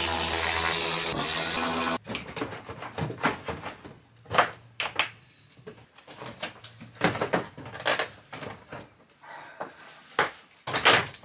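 A Ryobi cordless power tool runs with a steady whir for about two seconds, spinning out a front bumper bolt, then stops abruptly. After that, scattered knocks and clicks come from the Jaguar F-Type's front bumper as it is pulled loose from the car.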